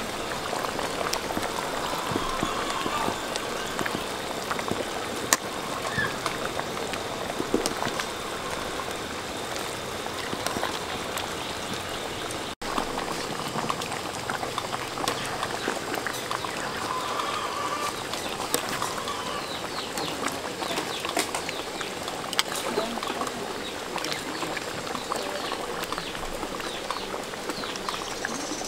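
Pot of vegetable soup bubbling at the boil while a metal ladle stirs it, with small clinks and scrapes of the ladle against the metal pot.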